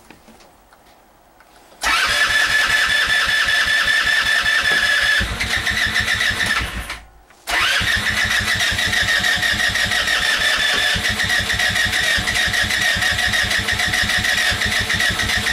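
A go-kart engine being cranked by its electric starter without catching: a long crank from about two seconds in, a short stop around seven seconds, then a second long crank. It is a cold, hard start.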